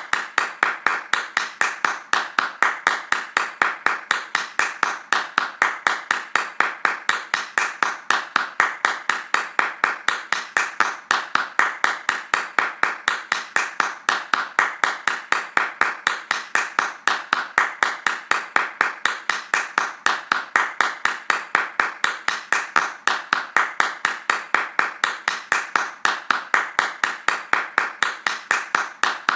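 Hands clapping fast in a steady, even rhythm, each clap a sharp crack.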